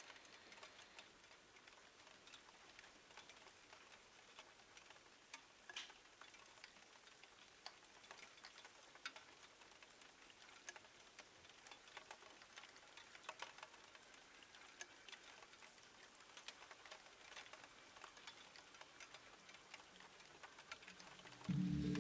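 Near silence: faint hiss with scattered light ticks. Music comes in right at the end.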